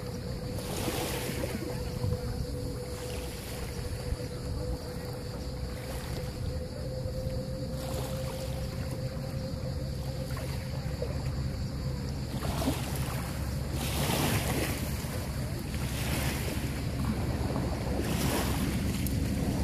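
Small waves washing in over a pebble beach, swelling up several times, over a low wind rumble on the phone's microphone. A steady hum runs under it, fading about two-thirds of the way through.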